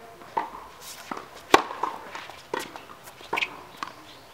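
Tennis rally on a hard court: one sharp, loud racket strike on the ball about a second and a half in, with quieter ball bounces, more distant hits and scuffing footsteps around it.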